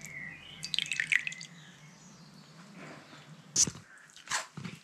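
Oat biscuit dunked into a mug of tea, with a quick cluster of drips and splashes about a second in, then two sharp crunching bites near the end.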